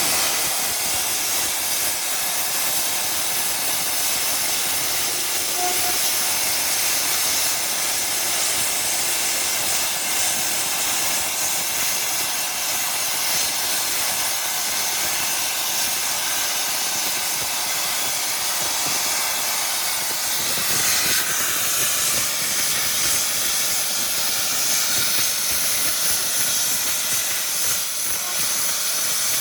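Huayuan LGK-200 plasma cutter's liquid-cooled hand torch cutting steel plate: a loud, steady hiss of the plasma arc and its gas jet.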